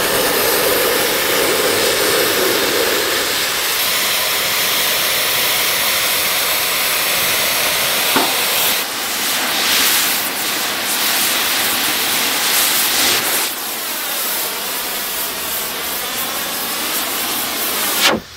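QCC 4900 Series iron-powder oxy-fuel cutting torch burning through hard steel: the cutting jet makes a loud, steady hiss. Its character shifts a few times, with a sharp click about eight seconds in, and it cuts off suddenly near the end.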